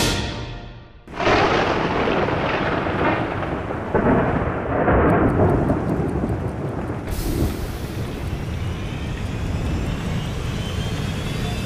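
Thunderstorm sound effect: a sudden rush of rumbling noise about a second in, swelling again twice. Near the end a rising whine grows in beneath it.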